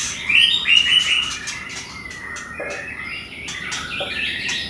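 Birds chirping, repeating short high notes in quick series throughout.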